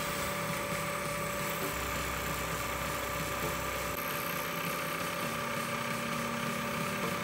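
Vertical milling machine running steadily, with a constant whine from its motor and spindle, while its cutter machines a hole into an aluminum angle bracket.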